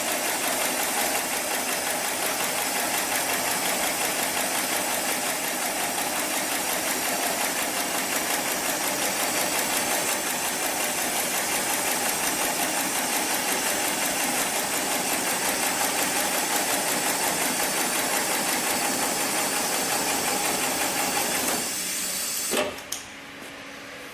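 Heavy-duty programmable pattern sewing machine for polyester and nylon slings running a stitch cycle: a loud, steady, fast mechanical stitching rhythm. It stops a little over 20 seconds in, followed by a single click, leaving a quieter steady hum.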